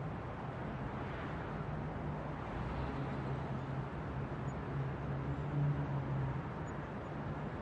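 City street ambience: a steady wash of distant traffic with a low hum underneath, swelling briefly about five and a half seconds in.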